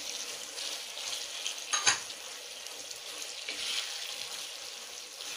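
Onions, capsicum and tomato sizzling in sauce in a non-stick kadai as they are stirred with a wooden spatula, the hiss swelling and easing with the strokes. About two seconds in comes one sharp knock, the loudest sound, as of the spatula striking the pan.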